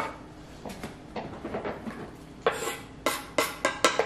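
Kitchen knife knocking on a cutting board while an onion is trimmed: faint handling sounds, then a quick run of six or seven sharp knocks in the second half.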